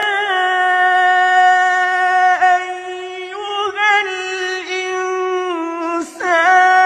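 A man's solo voice reciting the Quran in a melodic, drawn-out style, holding one long high note with small ornamental turns. About six seconds in he breaks off briefly and starts a new phrase.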